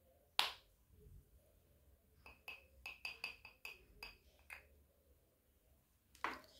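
Makeup containers and tools being handled. There is a sharp click, then a quick run of about eight light clicks and clinks with a faint ringing tone over about two seconds, and a short burst of noise near the end.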